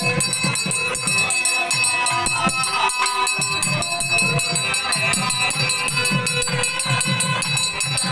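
Live temple ritual music: rapid, continuous jingling and ringing of metal percussion over steady drum beats.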